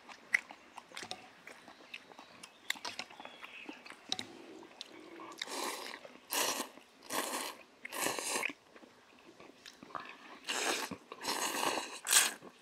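Noodle slurping: thin wheat noodles in broth slurped from bowls, in a run of four slurps about halfway through and three more near the end, each about half a second. Before them come light clicks of chopsticks against stainless steel bowls.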